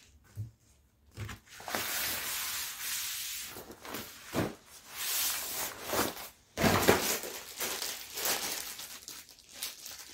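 Fabric tablecloth rustling and swishing as it is pulled off a wooden table and gathered up, with a few soft thumps along the way.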